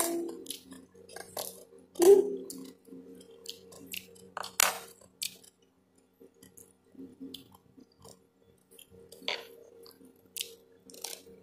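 Close-up eating sounds: chewing, lip smacks and scattered small clicks as food is handled and eaten by hand, with a brief vocal sound from the eater about two seconds in.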